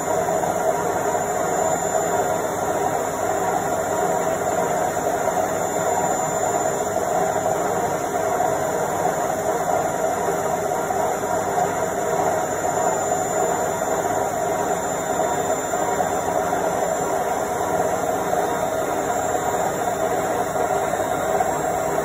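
Indesit front-loading washing machine on its spin cycle: a steady mechanical hum with a constant mid-pitched whine, the drum spinning at an even speed.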